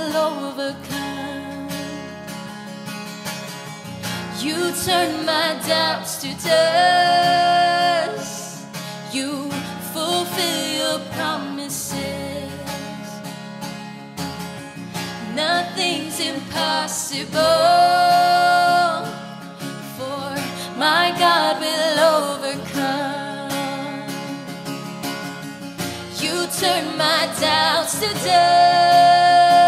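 A woman sings a worship song to strummed acoustic guitar, with long held notes recurring about every ten seconds.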